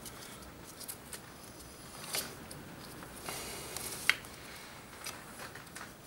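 Faint clicks and scrapes of a brake pad being worked out of a Suzuki DR650's rear disc brake caliper by gloved hands, with one sharper metallic click about four seconds in.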